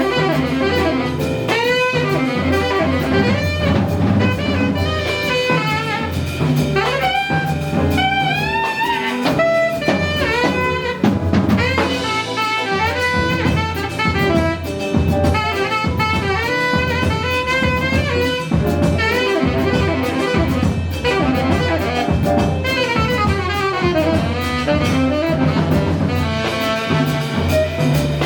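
Live jazz band playing: a saxophone carries fast melodic runs over bass and drum kit.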